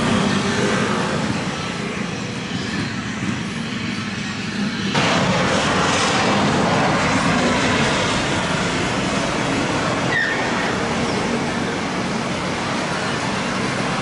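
Airbus A330-300's jet engines and airflow making a steady rush with a low hum underneath, which steps up suddenly, louder and brighter, about five seconds in. A faint short click near ten seconds.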